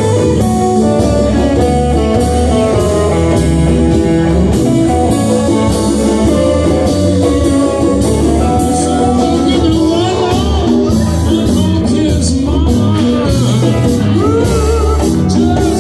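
Live band playing blues-style music: electric guitars over a drum kit, with singing.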